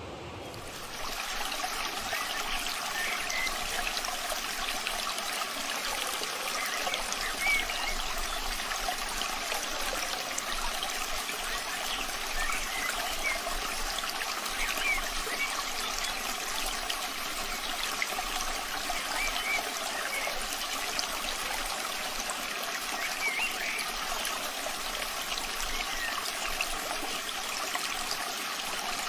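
Steady rain falling, a dense patter of drops. It takes over about a second in from a duller, softer rush.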